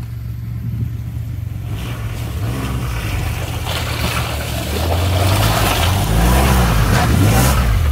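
Nissan Xterra SUV's engine pulling it up a muddy off-road track, revving up a couple of times and growing louder as it comes close.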